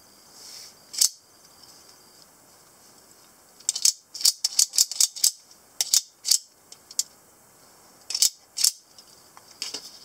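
Sharp clicks and snaps from an out-the-front automatic knife as its thumb slider fires the double-edged blade out and pulls it back. There is one snap about a second in, a rapid run of about a dozen from about four to seven seconds, and a few more near the end.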